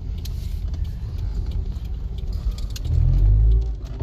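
Carburetted engine of a 1993 Nissan car running with a steady low rumble, briefly revved louder about three seconds in.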